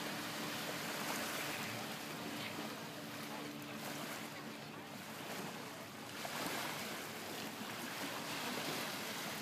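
Small lake waves lapping on a sandy shore, with wind on the microphone and a faint steady hum underneath.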